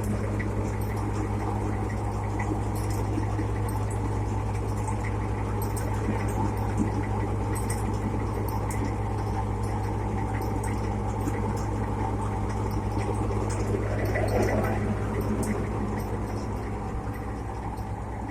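Tractor engine running steadily and driving a reaper, a constant low hum with faint irregular ticking over it.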